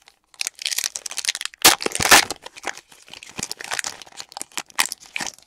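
The crinkly foil wrapper of a Panini Threads basketball card pack being torn open and crumpled, a dense crackling with sharp clicks; the loudest rips come about two seconds in.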